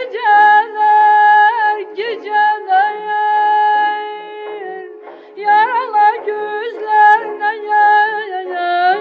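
A woman singing kəsmə şikəstə, an Azerbaijani folk song, in a high voice with quick wavering throat ornaments and one long held note in the middle, over steady instrumental accompaniment.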